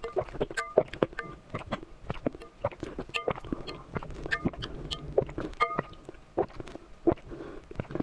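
Close-miked mukbang eating sounds of someone eating raw eggs: a rapid, irregular run of wet mouth clicks and smacks, several a second.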